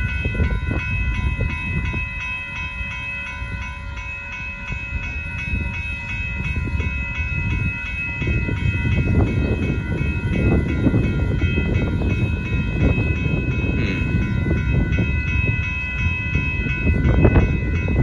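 Railroad grade-crossing warning bell ringing steadily while the crossing is still active, over a low rumble.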